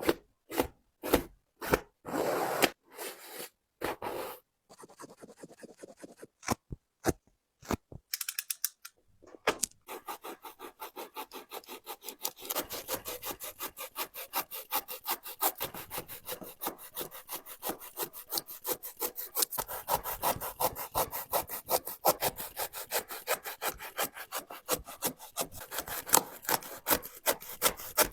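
A saw cutting through a Nike Air Jordan 3 basketball shoe, sawing back and forth. For the first several seconds the strokes come singly with pauses between them. After about ten seconds they settle into a fast, steady rhythm of several strokes a second.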